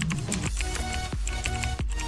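Background music with a steady beat, a low thump about every two-thirds of a second under sustained pitched tones.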